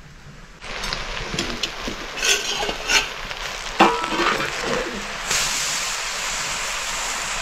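Food sizzling in hot oil in a pan, with a few sharp clatters of a utensil against it. The sizzle starts suddenly about half a second in and jumps to a louder, steady hiss about five seconds in.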